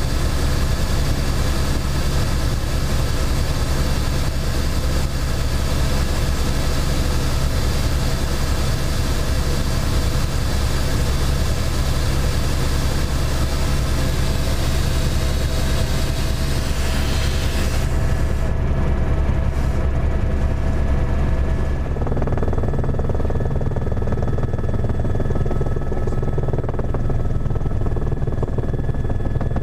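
Steady cabin noise of an A-Star (AS350) helicopter in flight, heard from inside the cockpit: a heavy low drone of the main rotor and single turbine engine. A little over halfway through, the high hiss above it falls away sharply, leaving the low drone.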